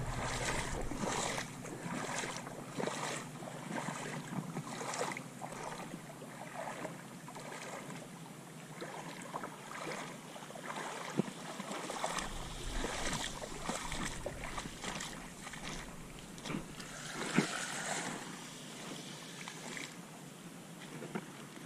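Shallow saltwater lapping and splashing, with wind on the microphone: an uneven hiss broken by many small splashes and one brief louder one about three-quarters of the way through.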